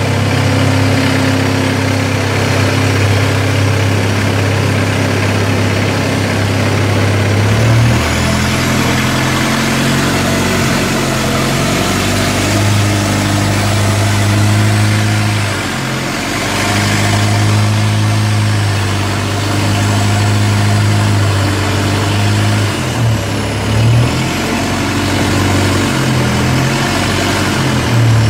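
Long-tail boat engine running steadily under way, its pitch dipping and picking up again a few times, over the hiss of water.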